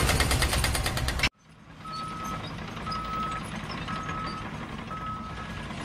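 A loud rapid pounding, about a dozen strokes a second, cuts off suddenly just over a second in. It is followed by an electronic beep like a reversing alarm, repeating about once a second over a low rumble.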